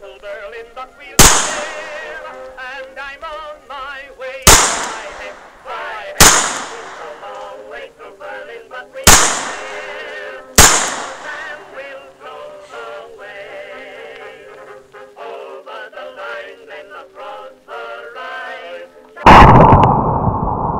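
Colt Model 1917 .45 ACP revolver fired five times at uneven intervals, each a sharp report with a short echo, over background music. Near the end comes a louder, longer blast that fades slowly.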